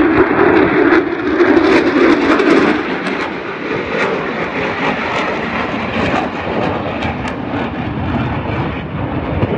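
Military jet fighter's engines roaring as it passes overhead, loudest with a deep hum for the first three seconds, then a steady rushing roar that eases a little.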